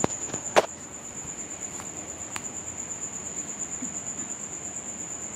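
A steady, high-pitched insect trill, with a sharp click about half a second in and a fainter one a couple of seconds later.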